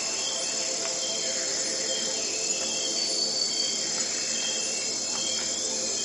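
Crickets chirping in repeated short trills over a soft, steady music drone of sustained tones.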